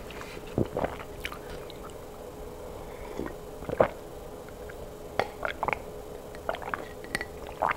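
Juice being drunk from a glass mug, heard close up: a string of short wet gulps and swallowing sounds.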